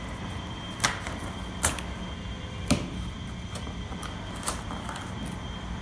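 Cardboard tabs being pushed into slots in a cardboard display panel, giving four sharp snaps or clicks about a second apart over a steady background hum.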